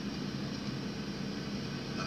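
Steady background hum and hiss, unchanging, with no distinct events.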